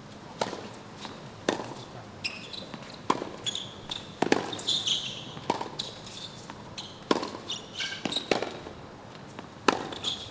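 Tennis rally on a hard court: a serve, then sharp hits of racket on ball and the ball bouncing, about every second to second and a half. Short high squeaks come between some of the hits.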